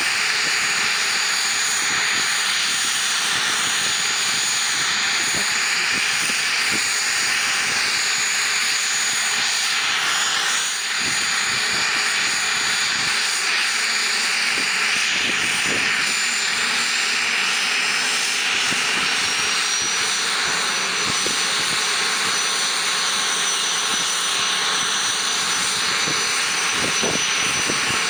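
Aérospatiale SA.318C Alouette II's Turbomeca Astazou turboshaft running on the ground during start-up: a steady turbine rush with a high whine that rises slightly in pitch partway through as the main rotor speeds up.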